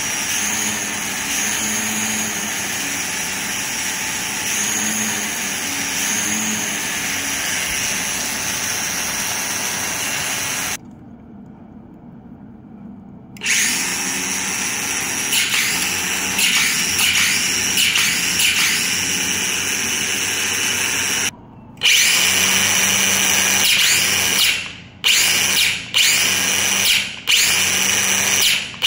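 Black and Decker cordless string trimmer's electric motor running with a steady high whine. It cuts out for a couple of seconds about eleven seconds in and then spins up again. Near the end it is switched off and on in short bursts, about once a second.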